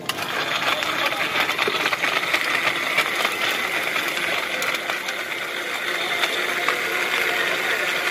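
Electric countertop blender switched on and running steadily, its motor and blades churning mango pieces into juice.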